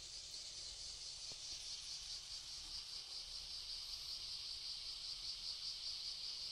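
Insects buzzing steadily in a high, rapidly pulsing drone that grows a little louder.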